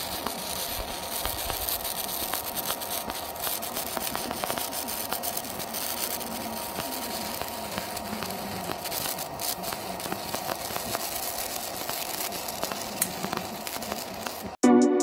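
Electric welding arc crackling and sputtering steadily, with many small sharp pops, until it cuts off just before the end.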